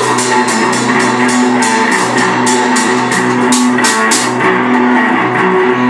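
Electric bass guitar and drum kit playing loud rock live, with fast, even cymbal hits about four or five a second that thin out about four seconds in.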